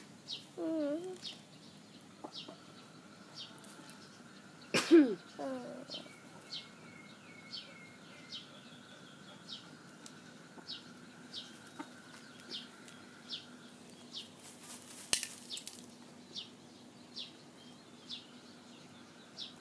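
Brown laying hens dust-bathing give a few low clucks, the loudest a sudden call with a falling pitch about five seconds in. A small bird chirps about twice a second in the background.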